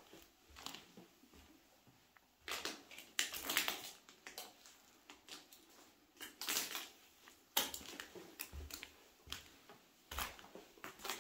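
Footsteps crunching over debris on the floor of a small room, irregular, with a few louder clusters of crunches.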